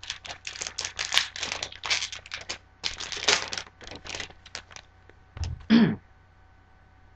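Foil Magic: The Gathering booster pack wrapper being torn open and crinkled by hand, a rapid run of crackles and rustles for about five seconds, followed by a single short low sound near the end.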